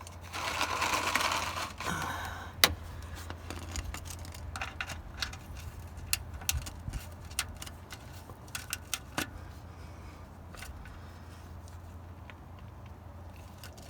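Ratchet wrench clicking as the oil drain plug is tightened: a quick run of rapid clicks, then scattered single clicks and metal tool clinks that thin out toward the end.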